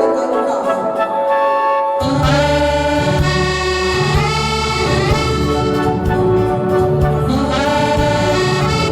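Orchestral waltz music with prominent brass. It starts on higher instruments alone, and a full low bass comes in about two seconds in.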